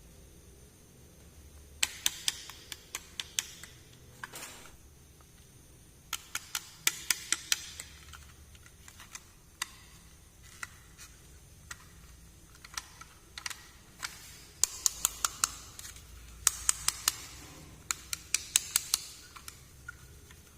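Small plastic toy pieces clicking and tapping as they are handled, in quick bursts of light clicks with short pauses between.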